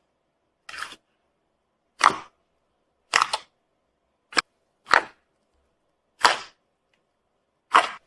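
Slime being squeezed or pressed, letting out seven short, sharp pops about a second apart, one of them a quick double.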